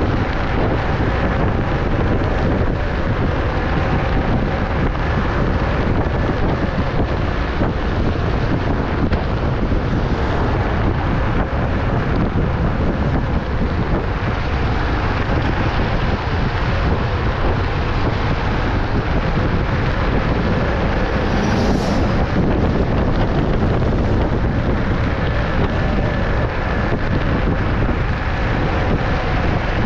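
Steady wind buffeting a neck-mounted GoPro's microphone while riding a Wolf King GT Pro electric scooter at road speed, with a faint steady motor whine underneath and a brief high hiss about two-thirds through.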